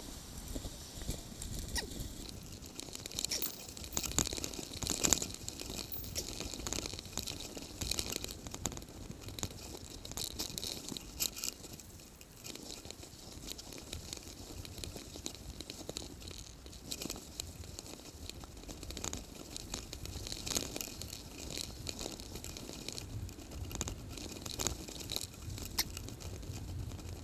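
Bicycle ride noise: an irregular run of small clicks, crackles and rattles over a low rumble as the bike rolls along paved road and towpath.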